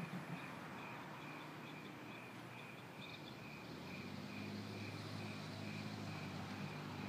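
Night insects chirping in a steady, regular rhythm, about three chirps a second. A low rumble swells in about halfway through.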